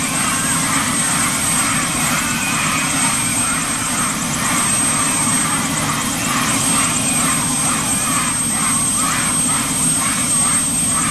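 Bell 206 helicopter's turbine engine running steadily on the ground, with a steady high whine over the noise of the engine and rotor.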